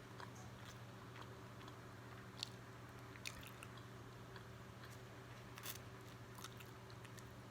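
Faint chewing and mouth sounds from eating a burrito close to the microphone, with a few soft clicks and smacks, over a steady low hum.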